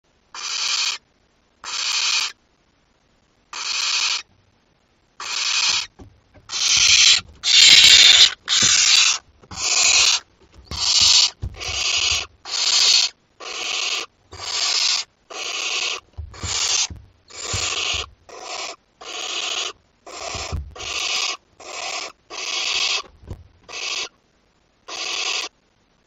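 Barn owl chicks giving their rasping, hissing begging calls, one hiss after another: at first about one every second and a half, then quicker and louder from about six seconds in. Soft low bumps of the owlets shifting on the wood chips sound under the calls.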